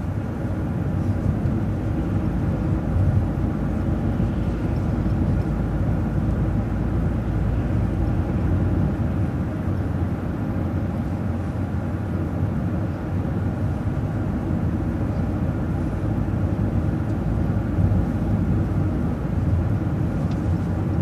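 City transit bus driving along, heard from inside: a steady low rumble of engine and road noise.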